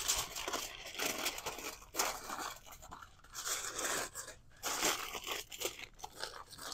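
Aluminium foil being crumpled, folded and crimped shut by hand into a tight packet, crinkling and crunching in irregular bursts.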